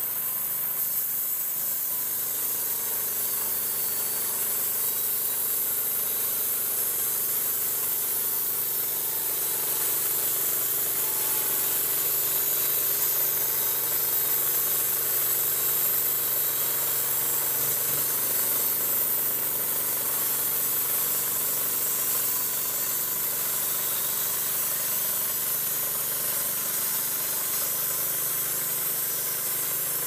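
Homemade tire-wheel band sawmill at work: its small gas engine runs steadily under load while the band blade cuts a board from a cedar log.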